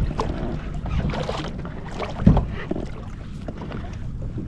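Water sloshing and splashing around a kayak, with wind on the microphone, and one louder thump a little over two seconds in.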